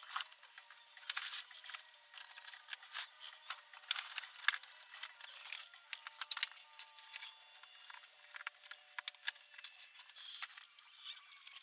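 Irregular scraping and clicking of hand tool work on an Ibanez electric guitar during a setup.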